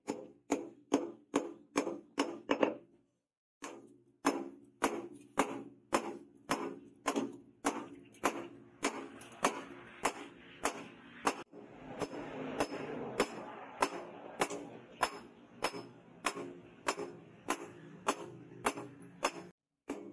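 Hammer blows on a red-hot steel sword blade resting on a round steel anvil, struck at an even pace of about two to three blows a second, each with a short metallic ring. The blows break off for under a second about three seconds in, then go on, with a hiss underneath them through the middle.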